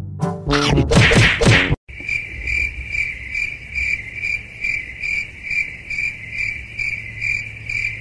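A cricket chirps steadily at one pitch, about three chirps a second, over a low hum. It follows a short, loud pitched sound in the first two seconds.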